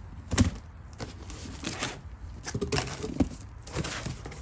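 Cardboard shipping box being handled: flaps rustling and scraping, with a sharp knock about half a second in and several lighter knocks after it.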